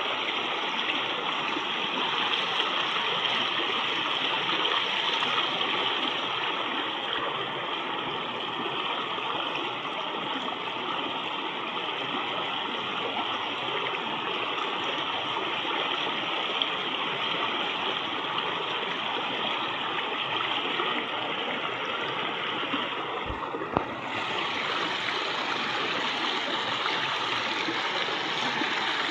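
River water flowing and gurgling, a steady rush. There is one brief knock near the end.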